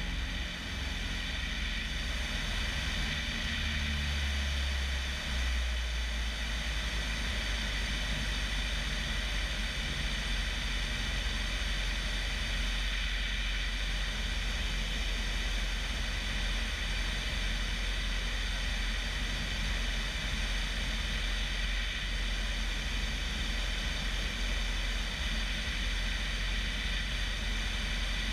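A Bellanca Decathlon's 150-horsepower Lycoming engine and constant-speed propeller running steadily in flight, heard from outside the cabin with wind rushing over the microphone.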